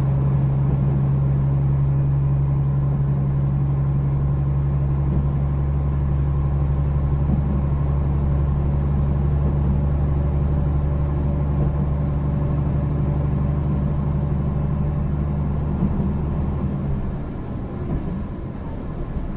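Steady drone of a KiHa 261 series diesel railcar's engine and running gear, heard inside the passenger cabin as the train runs at reduced speed. Near the end the drone drops in level and changes.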